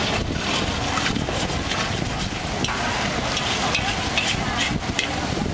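Egg and rice noodles sizzling in a hot steel wok over a steady rush of noise, with a metal utensil scraping and knocking against the wok several times as they are stirred.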